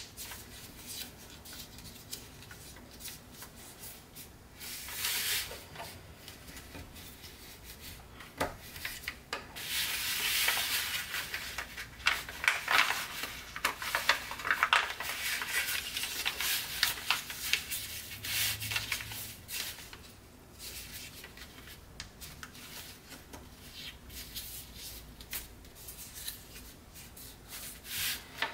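A sheet of Tant origami paper rustling and crinkling under the hands as a folded tessellation is worked and pressed flat, with rubbing and short crisp creasing crackles. The handling is busiest around the middle.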